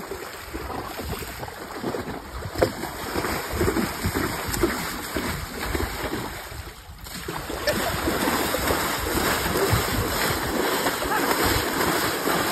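Belgian draft-cross horse wading through shallow floodwater, its hooves splashing and churning the water with each stride. The splashing dips briefly about seven seconds in, then picks up again.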